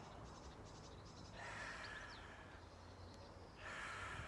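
Quiet garden ambience with faint bird chirps, and a woman's two long, soft breaths, the first a little over a second in and the second near the end.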